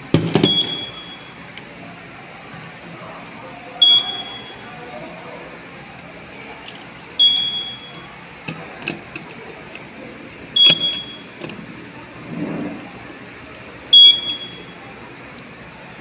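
Fire alarm control panel's trouble sounder giving a short high beep about every three and a half seconds, five times, the sign of a fault on the detection loop. Light clicks of a screwdriver working the detector-base terminals come between the beeps.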